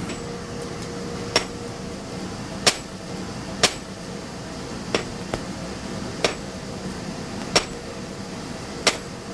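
Hand hammer striking hot copper on a stone anvil: eight sharp blows at an uneven pace, roughly one every second and a half, each with a brief high metallic ring.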